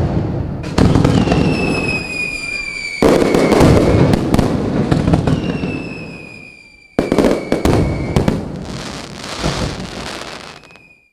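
Fireworks going off: dense crackling and popping, with loud new bursts starting a few times. A high whistle slowly falls in pitch twice over the crackle.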